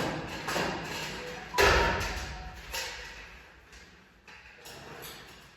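A series of knocks and thumps, the loudest a heavy thud about one and a half seconds in, followed by a few lighter knocks.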